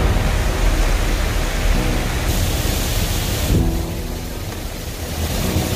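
Fountain jets splashing into a pool, a steady rushing hiss, with faint background music underneath.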